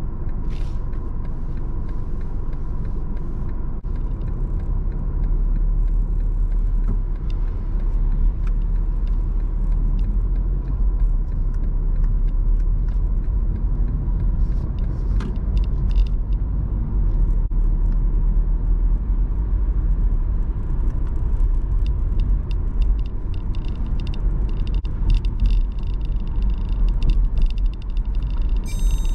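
Car driving on city streets, heard from inside the cabin: a steady low rumble of engine and tyres with a faint steady whine.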